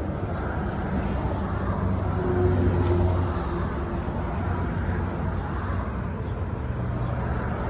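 Steady vehicle engine noise, swelling about two to three seconds in and easing off.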